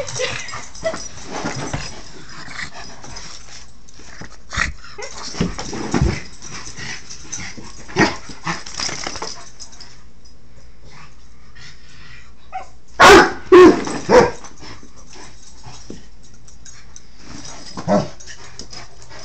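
A mastiff and a dachshund playing: scattered short barks and yips, with three loud barks in quick succession about thirteen seconds in.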